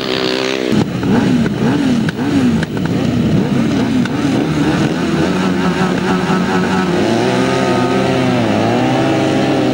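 Several grasstrack sidecar outfits' engines revving at the start line, their pitch swinging up and down. From about two-thirds of the way in, a thicker, steadier blend of many engines running hard together.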